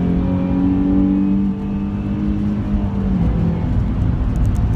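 Nissan 350Z's 3.5-litre V6 heard from inside the cabin, pulling in gear with its pitch climbing slowly, then easing off about three seconds in, with road noise underneath.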